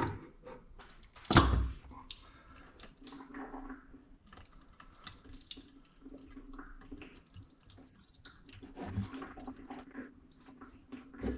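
Ford 8.8 differential cover being pried loose from its gasket-maker seal with a screwdriver: a sharp metal knock about a second in, then scattered clicks and scrapes, with gear oil dripping out.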